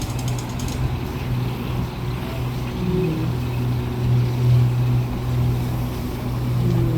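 Getty Center tram running, heard as a steady low hum over a constant rushing noise, with a brief run of faint rapid ticks at the start.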